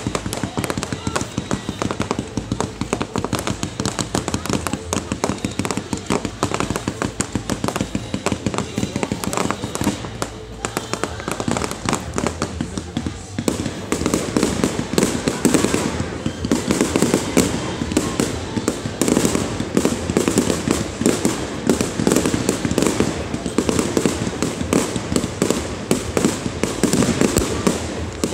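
Fireworks going off in rapid succession, a dense crackle of bangs and pops that grows louder and heavier about halfway through.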